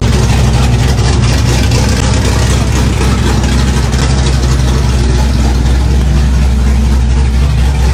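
Vehicle engines idling and rolling slowly through a car-show lane, a steady low drone under general crowd noise.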